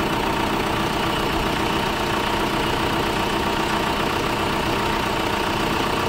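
Tata Safari engine idling steadily, with its alternator charging. It runs smoothly, with no grinding from the newly replaced alternator clutch pulley.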